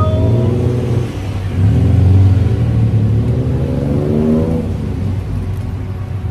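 Tuk-tuk engine running loudly under the passengers, revving up as it accelerates, its pitch climbing twice in a row.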